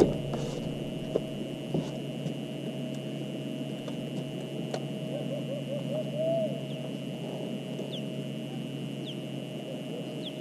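A steady mechanical hum with a constant high whine over it, typical of a small electric motor running. A few faint short falling chirps come in the last few seconds.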